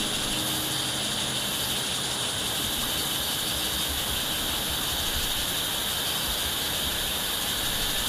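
Steady, high-pitched chorus of forest insects: a dense, unbroken buzzing that holds the same level throughout.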